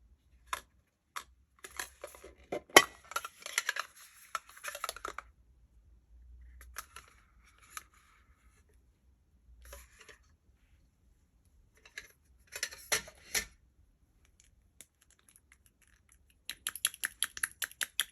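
Slime being worked by hand, giving bursts of sticky clicking and crackling with quiet gaps between, and a quick run of clicks near the end.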